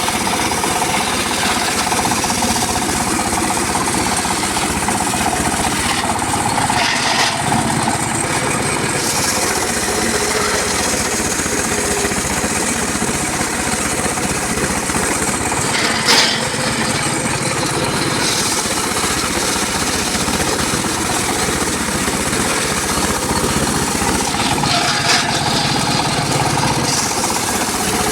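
Homemade circular saw rig running steadily while cutting gmelina wood: a constant loud mechanical din, with short sharper bursts about 7, 16 and 25 seconds in.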